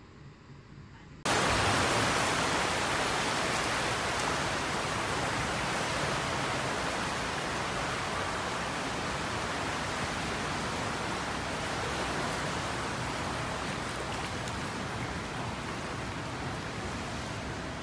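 Floodwater rushing in a loud, steady roar-free rush across a flooded indoor floor, starting abruptly about a second in.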